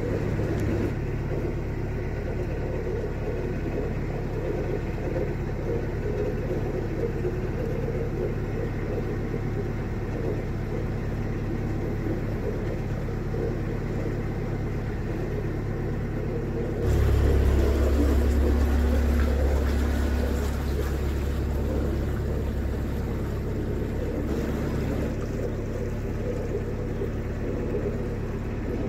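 A narrowboat's diesel engine running steadily under way, a low rumble. Just past the middle it grows louder and deeper for about eight seconds, then settles back to its earlier level.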